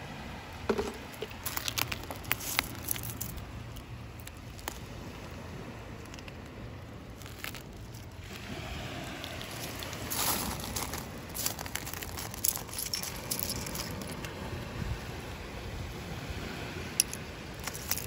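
Loose piled seashells clicking and clattering as they are disturbed, in several short clusters of sharp clicks, over a steady low background rumble.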